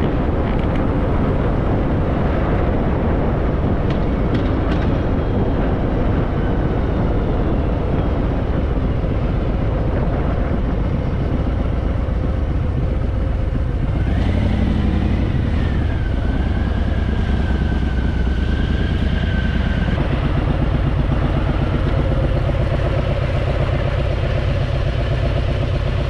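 Harley-Davidson Fat Boy's air-cooled V-twin engine running steadily at motorway cruising speed, with wind and road noise. About halfway through, the low rumble swells and a thin whine joins it for several seconds, dropping slightly in pitch before it fades.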